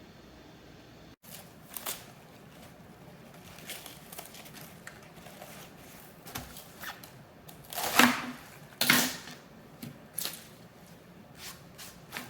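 Kitchen food-preparation handling sounds: scattered light clicks and rustles, with two louder scraping, rustling noises about eight and nine seconds in.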